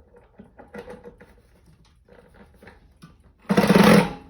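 Light clicks and taps of a bracket and screw being handled, then about three and a half seconds in an impact drill runs in a short, loud burst, driving a screw.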